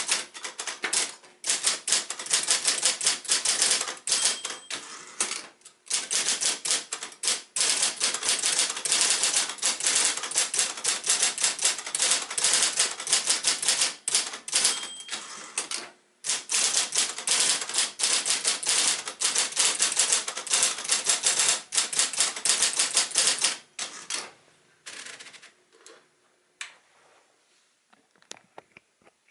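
Royal Apollo 10 electric portable typewriter typing: fast runs of motor-driven key strikes with a few short pauses. It tapers off about three quarters of the way through to a few scattered clicks.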